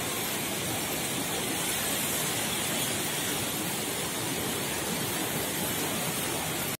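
Fast-flowing stream water rushing steadily past collapsed concrete bridge rubble.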